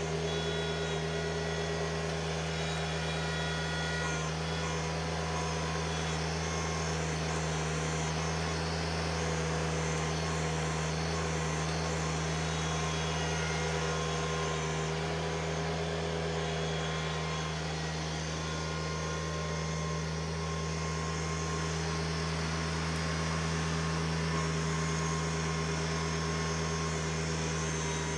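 LS MT125 sub-compact tractor's diesel engine running steadily as the tractor carries brush in its front-loader grapple.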